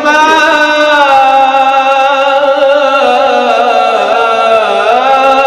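A man's voice chanting Quranic recitation in the melodic tajweed style, holding one long unbroken note with a slight waver. The pitch steps down about three seconds in, then dips and rises again as an ornament near the end.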